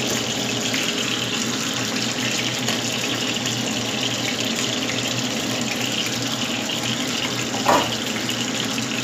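Fish frying in hot oil: a steady, even sizzle. A short knock with a brief ring sounds about three-quarters of the way in.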